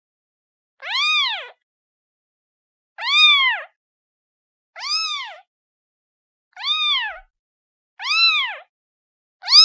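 Kitten meowing over and over: six high calls about every one and a half to two seconds, each rising and then falling in pitch.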